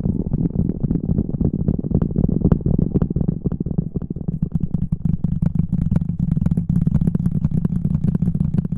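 Close-miked ASMR rubbing and rustling on the microphone, a continuous muffled rumble thick with rapid crackles.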